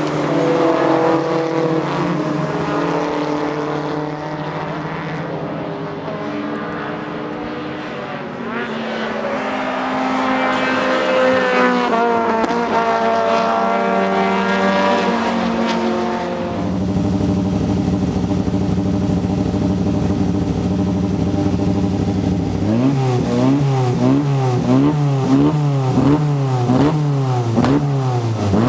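Toyota 4A-GE 20-valve (five valves per cylinder) four-cylinder race engine and exhaust of a Vivace 908, heard onboard. The engine note falls and rises through gear changes, settles to a lower steady note about two-thirds of the way through, then is revved in quick repeated blips near the end.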